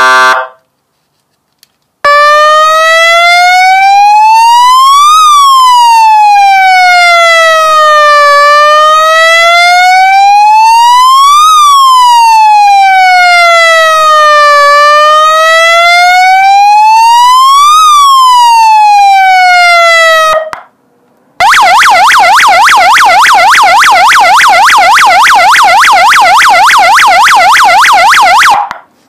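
A 12 V 30 W multi-tone electronic siren sounder, very loud, mimicking UK emergency vehicles. A steady horn tone cuts off about half a second in. After a short pause it runs a slow wail that rises and falls three times over about 18 seconds, then after a brief gap switches to a fast yelp until it stops near the end.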